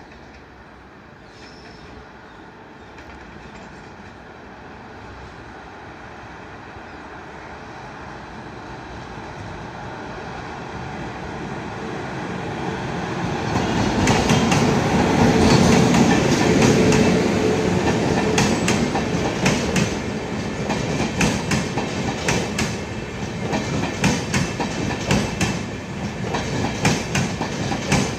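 Electric-hauled Indian Railways passenger express approaching and passing: a rumble that grows steadily louder, peaks as the electric locomotive goes by about halfway through, then gives way to the coaches rolling past with a rhythmic clickety-clack of wheels over rail joints.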